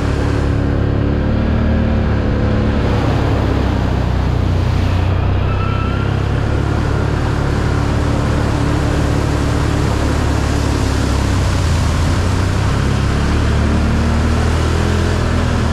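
Can-Am 1000 ATV engine running steadily under way, over a continuous rush of wind and ground noise.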